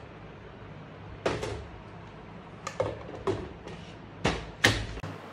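A series of sharp knocks and clacks, about seven in all, from a stainless-steel mixer-grinder jar and its lid being handled and set down on a steel counter; the loudest comes near the end.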